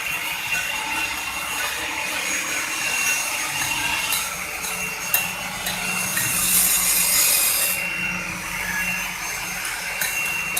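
CNC stone-carving machine's spindle cutter grinding into stone, a steady scraping hiss over a low motor hum.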